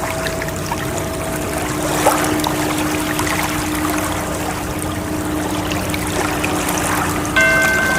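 Steady rush of ocean waves, with sustained ringing tones laid over it. Near the end a new bell-like tone starts suddenly and rings on.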